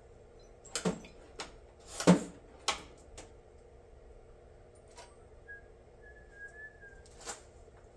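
Scattered clunks and clicks of metal tooling being picked up and set down at a lathe, the loudest a little after two seconds in. A faint, wavering whistled tone comes near the middle, over a low steady hum.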